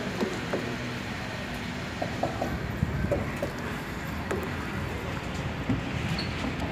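Bus diesel engine running steadily at idle, with a few light knocks about two to three and a half seconds in.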